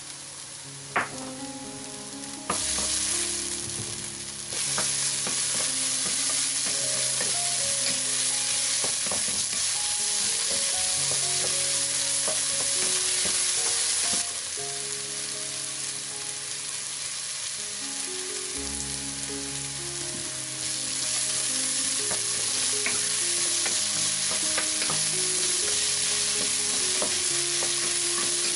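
Diced onion, carrot and celery root with starch sizzling as they fry in oil in a pot, stirred with a wooden spoon. A single sharp tap comes about a second in. The sizzle grows louder twice in the first five seconds, eases about halfway through and rises again later.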